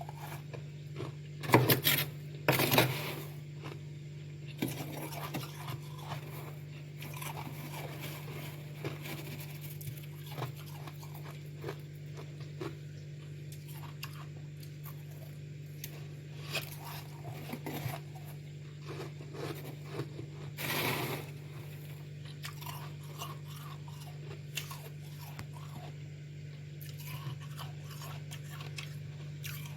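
Freezer frost being bitten and chewed close to the microphone: two loud crunches in the first few seconds and another near the twenty-second mark, with quieter crackling and scraping between them. A steady low hum runs underneath.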